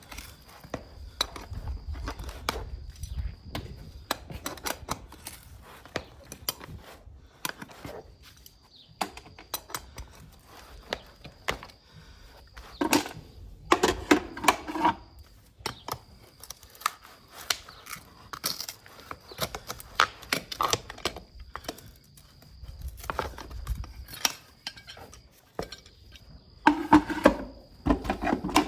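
Farrier's hand tools working on a horse's hoof: a steady run of sharp clicks and short scrapes of metal cutting and paring horn, with louder clusters about halfway through and near the end.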